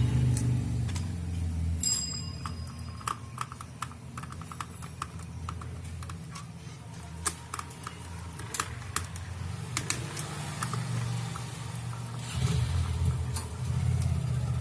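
Small clicks and taps of plastic Bluetooth speaker parts being handled and fitted back together, over a steady low background drone. A brief high tone sounds about two seconds in.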